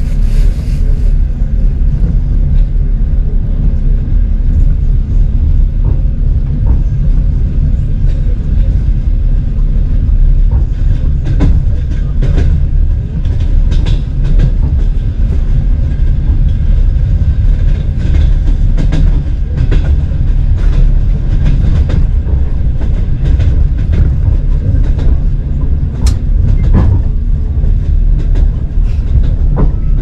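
Passenger train running: a steady low rumble with scattered sharp clacks.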